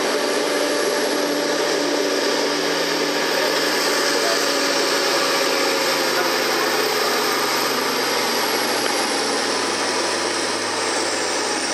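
A red International Harvester Farmall farm stock tractor's engine runs hard under full load while pulling a weight-transfer sled, pouring black smoke from its vertical stack. Its steady engine note sinks slowly as the sled's resistance builds during the pull.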